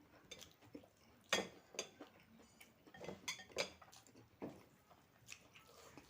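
A person eating close to the microphone: irregular chewing and mouth smacks with a few sharper clicks, the loudest about a second in.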